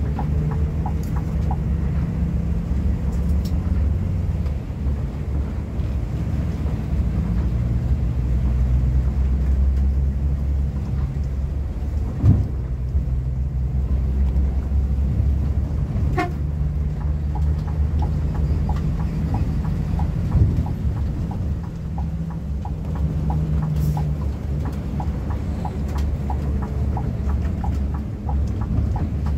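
Scania K360iB coach on the move: a steady low drone from its five-cylinder diesel and the road, with the pitch shifting up and down several times as engine speed changes. A brief sharp knock comes about twelve seconds in and another near twenty seconds.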